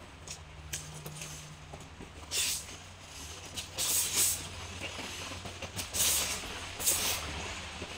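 A man slurping and sucking instant noodles eaten by hand, about four short wet slurps with mouth noises between, over a low steady hum.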